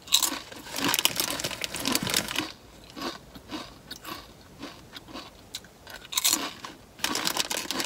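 Crunchy chips being bitten and chewed up close: a run of loud crunching, then softer chewing, then a fresh crunchy bite about six seconds in.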